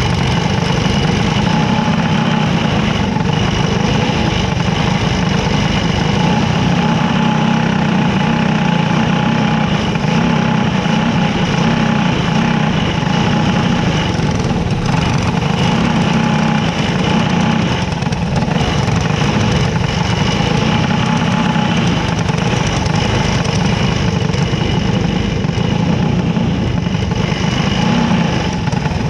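Small dirt-track race car's engine running steadily at low speed, heard close from a camera mounted on the car as it rolls around the track.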